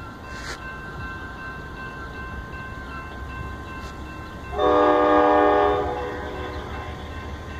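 Amtrak Superliner passenger cars rolling slowly past with a steady low rumble. About four and a half seconds in, a train horn sounds one loud blast of about a second and a half, then fades.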